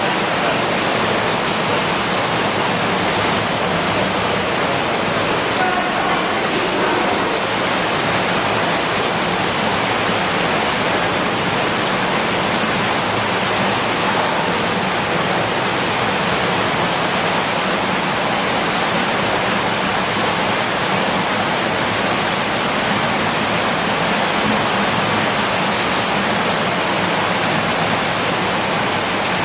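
Water rushing and splashing through an underground cave streamway, a steady, unbroken hiss.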